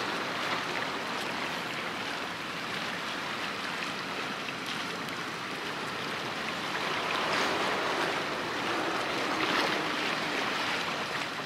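Seawater washing and lapping close by: a steady rushing wash that swells a couple of times in the second half.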